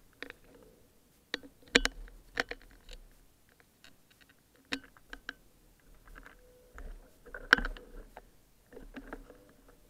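Scattered clicks, knocks and rustles from a rider handling a motorcycle whose engine is off. The loudest knocks come a little under two seconds in and again about two-thirds of the way through.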